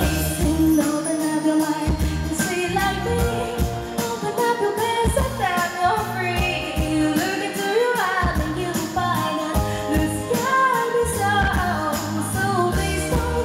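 Female pop singer singing live with a band, over a steady drum beat.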